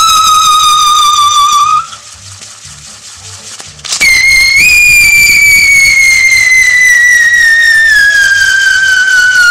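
A loud, high whistling tone that breaks off about two seconds in. After a short pause a second long tone starts higher, rises briefly, then slides slowly down in pitch.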